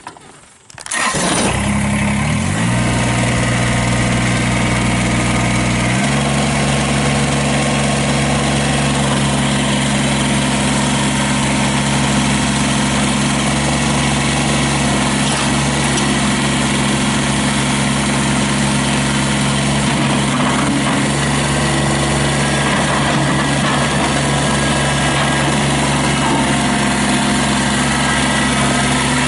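Kubota BX23S subcompact tractor's three-cylinder diesel engine starting about a second in and settling into a steady idle, then stepping up to a higher steady engine speed about six seconds in.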